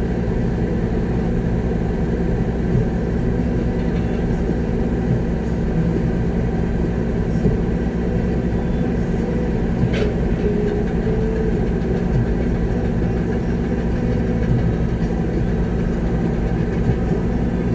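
Concrete mixer truck's diesel engine running steadily, heard from inside the cab, with a single short click about ten seconds in.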